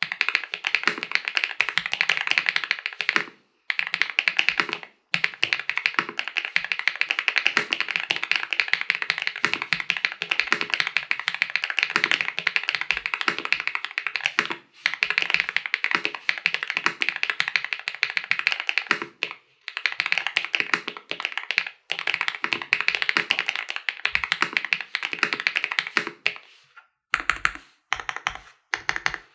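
Fast, continuous typing on a Suit80 gasket-mount mechanical keyboard with an FR4 plate and lubed Klein switches fitted with switch films. The keystrokes come in dense runs broken by a few short pauses. Near the end they turn sparse and separate.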